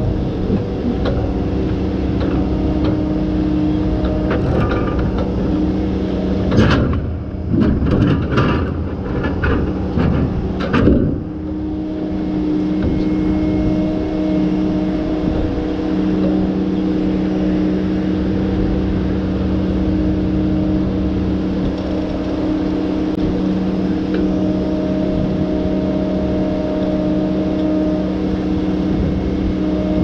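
Tigercat forestry machine's diesel engine and hydraulics running steadily. About seven to eleven seconds in there is a stretch of sharp knocks and scraping as the grapple handles a steel mat.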